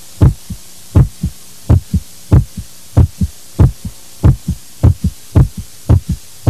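A steady heartbeat, a strong beat followed closely by a softer one, repeating about one and a half times a second over a faint low hum.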